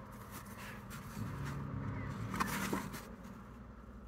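Faint rustling of photo prints being handled by a gloved hand, with a couple of soft taps about two and a half seconds in.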